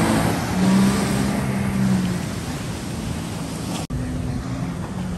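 Jet ski engine running at speed over open water, with the rush of spray and wind. The engine note climbs about a second in and holds steady. A sudden brief dropout comes nearly four seconds in, after which an engine goes on at a steady note.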